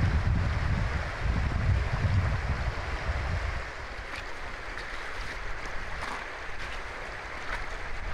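Wind buffeting the microphone over the steady rush of a shallow river running over stones. About halfway through the wind rumble drops away, and a few faint clacks of footsteps on loose river stones come through.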